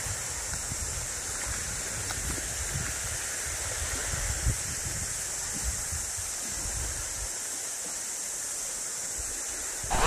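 Wind buffeting the microphone over the steady wash of small waves on the sand, with a faint tick or two near the middle.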